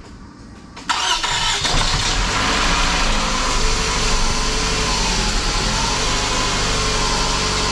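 2007 Scion tC's 2.4-litre four-cylinder engine started about a second in: a brief crank, then it catches and runs steadily. This is its first start since the engine was installed.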